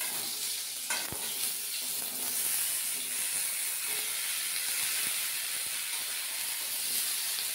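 Raw pumpkin chunks dropped into a steel kadai of hot mustard oil, hissing and sizzling steadily as they start to fry. There is a sharp knock about a second in, then a few light taps of the pieces and the spatula against the pan.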